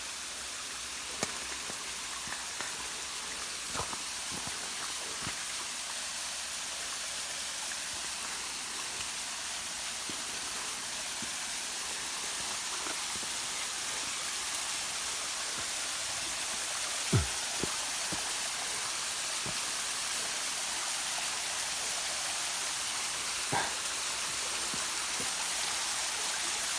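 Small waterfall with little water in it: a steady rush of falling water that grows slightly louder, with a few short knocks, the loudest about two-thirds of the way through.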